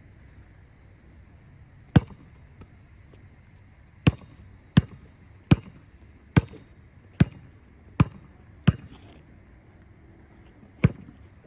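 A series of nine sharp knocks or thuds: one about two seconds in, a run of seven at a steady pace of just under one and a half a second, and a last one near the end.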